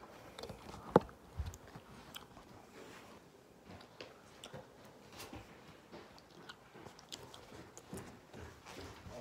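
Scattered soft clicks and rustles close to the microphone, with one sharp knock about a second in.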